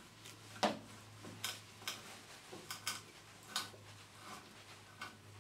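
M12 hand tap turned in a tap wrench, re-cutting the threads of a hole in an aluminium sump: irregular sharp clicks and ticks as it cuts, about one every half second, the loudest about half a second in. The hole still holds bits of a sheared steel bolt that the tap is breaking out.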